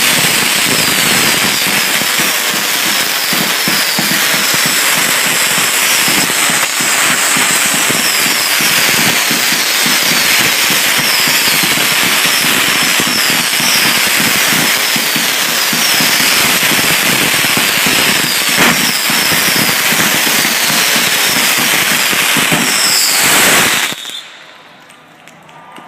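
Fireworks fired from close range in a dense, continuous barrage of loud bangs and crackling. The barrage cuts off suddenly about 24 seconds in.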